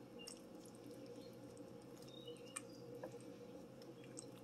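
Faint stirring of thick, creamy gnocchi stew with a spoon in an enamel pot: soft squelches and a few light clicks of the spoon, over a steady low hum.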